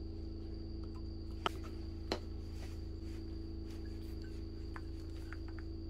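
Two sharp clicks about a second and a half and two seconds in as alligator-clip test leads and wires are handled, over a steady low electrical hum with a thin high steady whine.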